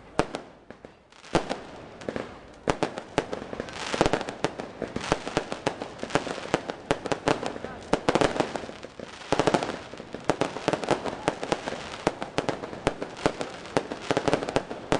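Fireworks display: aerial shells and firecrackers going off in rapid, dense volleys of sharp bangs with crackling. After a brief lull about a second in, the bangs come almost continuously.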